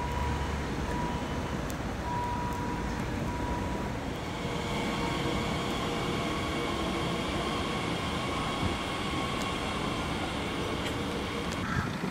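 Class 442 Talent 2 electric multiple unit arriving at a station platform: a steady rumble of the train, with several steady electric whine tones coming in about four seconds in.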